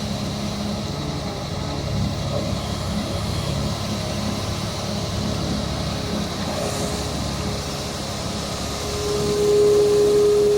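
Excavator's diesel engine running steadily, with a whine that swells and grows louder about nine seconds in.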